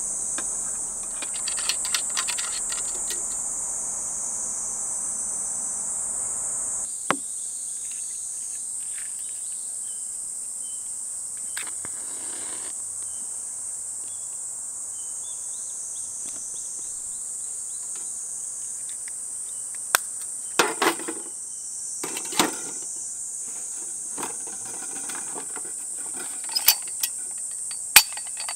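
A steady high-pitched drone of insects in the woods, with a scatter of sharp knocks and clicks, several in a cluster about two-thirds of the way in and again near the end.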